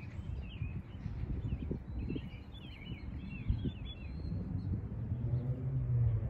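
Wind rumbling on the microphone with small birds chirping repeatedly. About five seconds in, a low steady engine hum rises in and grows louder.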